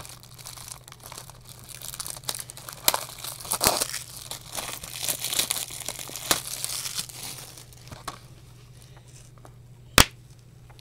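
Plastic shrink-wrap being peeled and torn off a Blu-ray case, crinkling with many small crackles, then quieter. Near the end comes a single sharp snap as the plastic case is pulled open.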